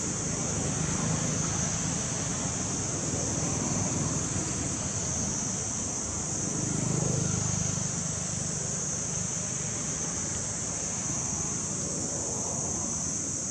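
Steady outdoor background noise: a high hiss and a low rumble that swells about seven seconds in.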